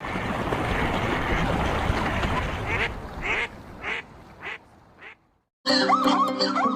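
Ducks quacking: a dense chorus of many overlapping quacks for about three seconds, then five separate quacks. Music starts near the end.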